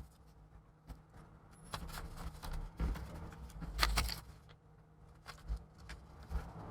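Light handling noises: scattered clicks, taps and rustling, with a louder clatter of clicks about four seconds in.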